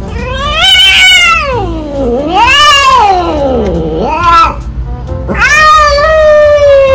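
Domestic cat caterwauling during mating: long, loud yowls that rise and then fall in pitch, three drawn-out ones with a short one between them, the last sliding slowly downward.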